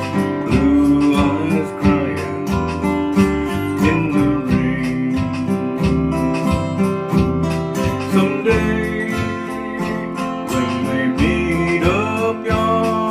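Country song played on a strummed acoustic guitar in a steady rhythm, about two strums a second, under a melody with gliding notes; no clear sung words.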